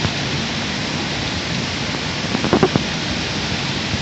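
A small waterfall cascading over rocks into a shallow, fast rocky stream, making a steady rush of water. A brief cluster of sharper sounds comes about two and a half seconds in.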